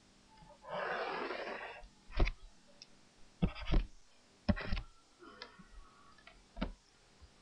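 A tablet pen working on a computer screen: a scratchy drag lasting about a second, then about half a dozen sharp clicks and taps as the line is drawn and arrowheads are added.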